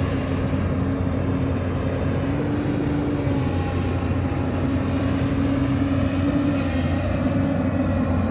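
Hyundai 220L crawler excavator's diesel engine running steadily under working load, with a higher whine that rises and falls slightly in pitch as the machine moves.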